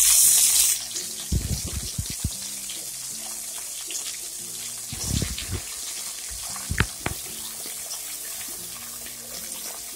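Onion and tomato sizzling in hot oil in a kadai: a loud burst of sizzling right at the start as the tomato hits the oil, settling within a second into a steady sizzle with occasional pops. A few low dull knocks sound about a second and a half, five and seven seconds in.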